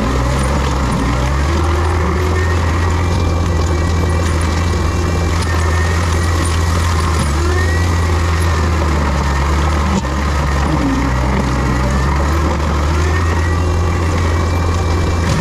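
Diesel engine of heavy land-clearing equipment running steadily under load: a deep, constant drone with a faint high whine that rises and falls over it.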